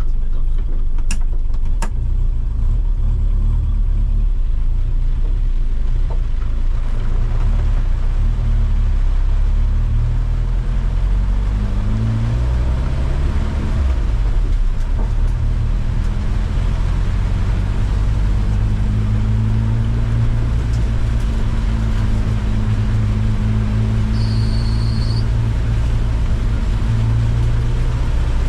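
Car engine running at low revs, its pitch rising and easing off about halfway through and then holding steady. A short high-pitched beep sounds near the end.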